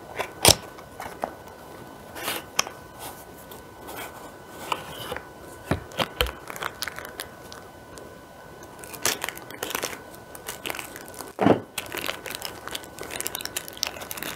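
Cardboard toy box being opened and its clear plastic packaging bags crinkling and rustling as the parts are taken out, in an uneven run of sharp rustles and clicks. The loudest come about half a second in and after about 11 seconds.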